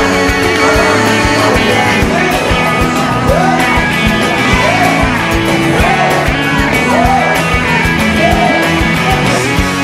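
Rock music with a steady beat, guitar and singing.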